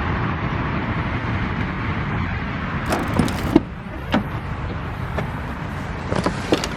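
Steady car rumble with sharp clicks and a brief rattle about three seconds in, then a few more single clicks.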